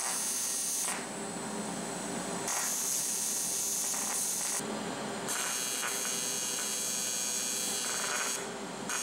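AC TIG welding arc on thin aluminum buzzing in three bursts, a short one at the start and two longer ones, with brief pauses as the arc is broken and struck again.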